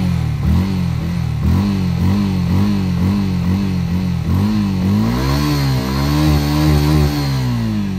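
Suzuki Gixxer SF 150's single-cylinder engine revved through its exhaust: a quick series of short throttle blips, about two a second, then a few longer, higher revs from about four and a half seconds in, settling back near the end.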